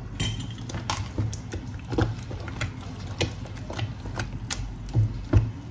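A spoon clicking and knocking against a bowl in quick, irregular taps, about four a second, while butter is worked into the grated pomtayer mixture; the loudest knock comes near the end.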